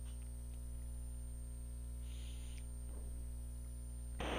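Steady low electrical hum with a faint high-pitched whine underneath, with a short soft hiss about two seconds in and a louder breathy rush near the end.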